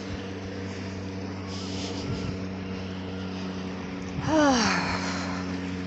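A steady mechanical hum made of several even low tones. About four seconds in, a woman's voice gives one loud, drawn-out vocal sound that glides down in pitch.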